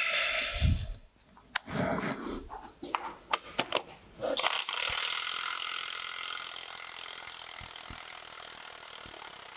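A cordless DeWalt impact wrench hammering steadily on a socket to undo a bolt on a tractor's front axle; it starts about halfway through, after a few metallic clinks as the socket is fitted.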